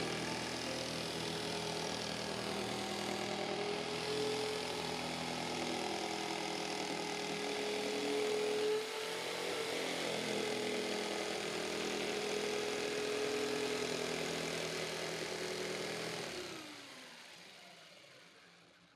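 A motor running with a steady hum of several tones, then winding down near the end, its pitch falling as it fades out.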